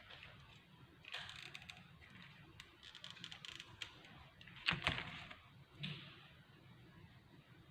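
Scattered handling noises: short rustles and light clicks, with a sharper knock a little before five seconds in.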